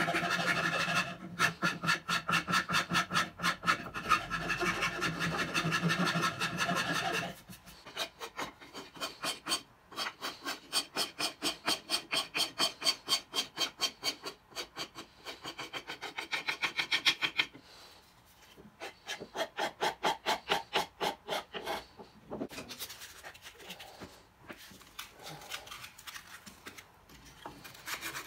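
A hand file rasping back and forth across a rosewood saw handle in quick, even strokes, about three to four a second, smoothing rough spots in the carved wood. The strokes get quieter and sparser in the last few seconds.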